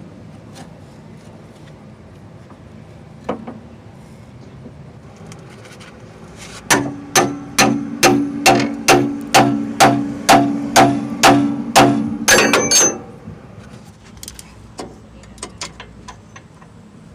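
Hammer blows on a steel pickle fork driven in to separate the track bar's ball stud from its frame mount bracket: a run of about fifteen evenly paced metallic strikes, about two and a half a second, each with a ringing tone, ending in a quicker flurry. A single knock comes before the run, and a few lighter taps follow it.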